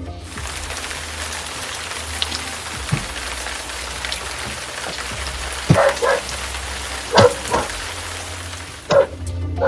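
Steady rain falling, with a dog barking about five times in the second half.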